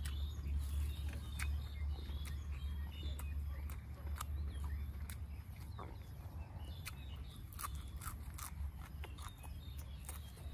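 Close-up chewing of crunchy raw vegetables dipped in sauce, heard as irregular crisp crunches, over a steady low rumble.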